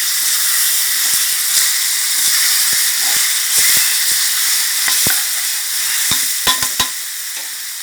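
Red curry paste and fish pieces sizzling in hot oil in a pan while being stir-fried with a spatula, with a few sharp clacks of the spatula against the pan about five to seven seconds in.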